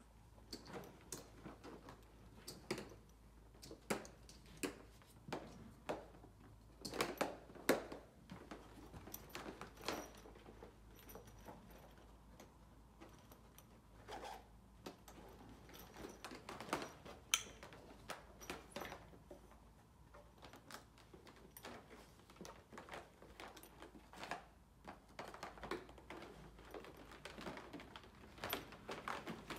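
A roll-up rescue stretcher being unstrapped and rolled up by hand: irregular clicks, knocks and rustling from its straps, buckles and fabric, coming every half second or so at times with short pauses between.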